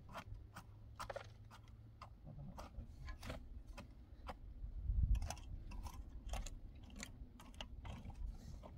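Pickaxe striking stony soil, with a heavier thud about five seconds in, among irregular clicks and knocks of stones and block pieces being handled and set in a trench.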